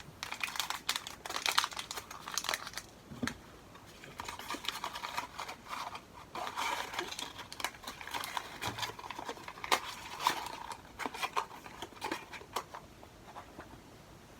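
Crinkling and rustling of paper packaging being handled, a run of crackles and small clicks that dies away near the end.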